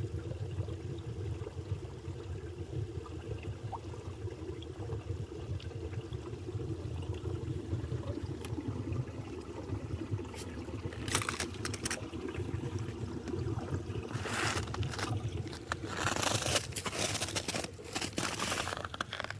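Water running steadily in a stream. Bursts of crunching and scraping come in at about ten seconds and again from about fourteen seconds.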